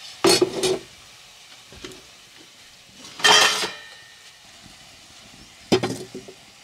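A metal ladle scraping and stirring in a pot, three short loud scrapes over a faint steady sizzle of cooking.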